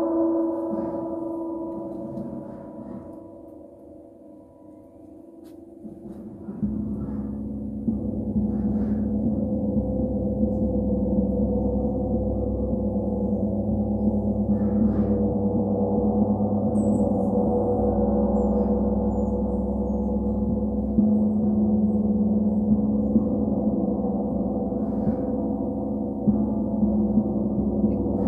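A gong ringing. The tone dies away over the first few seconds, then swells again about six seconds in into a sustained low hum with brighter overtones above it, with small soft strikes now and then.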